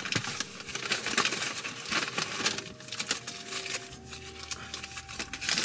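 Paper sandwich wrapper rustling and crinkling in irregular bursts as the sandwich is handled.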